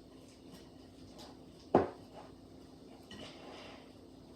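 Kitchenware clattering during batter mixing: one sharp, loud knock of a utensil or cup against a bowl a little under two seconds in, with a few light clinks around it.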